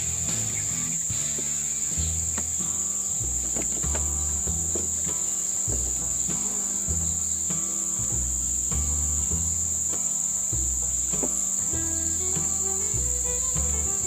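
A steady, high-pitched drone of insects, unbroken throughout, over background music with a stepping bass line and light beats.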